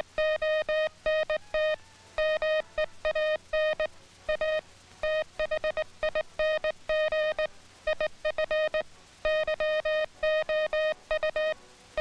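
Morse code sent on a straight telegraph key: a steady tone of one pitch switched on and off in short dits and longer dahs, in quick groups of characters with brief gaps between them.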